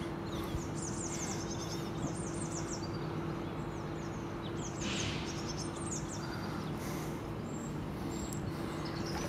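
Small birds singing in repeated short, high chirping phrases over a steady low hum and outdoor background noise, with a brief rush of noise about five seconds in.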